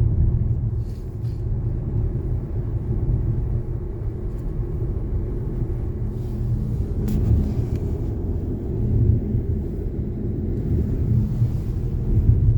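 Car driving along a road: a steady low rumble of engine and tyre noise, with a brief click about seven seconds in.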